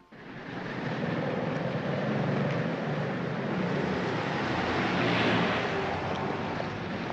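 City street traffic noise, a steady rush of passing cars that swells about five seconds in as a vehicle goes by.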